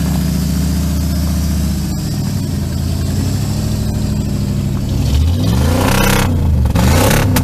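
A Ford F-150's 351 Windsor (5.8 L) V8 running through side-exit exhaust pipes, still cold in sub-zero air. It idles steadily, then about five seconds in it is revved up and back down a couple of times, getting louder.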